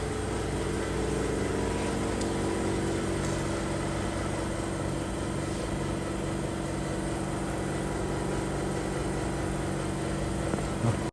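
Industrial vacuum stuffing mixer running with a steady mechanical hum.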